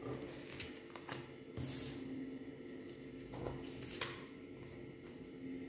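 Cards being drawn from the deck and laid down on a wooden table: several faint, brief slides and soft taps, over a faint steady low hum.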